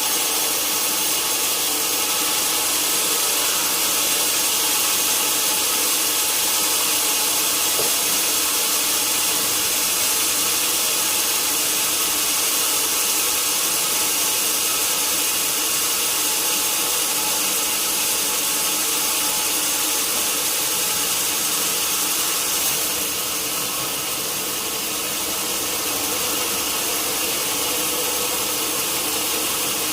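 Sawmill saw running steadily as it cuts lengthwise through a large log, with a continuous hiss of the cut over the steady whine of the machine. It dips slightly in loudness about three quarters of the way through.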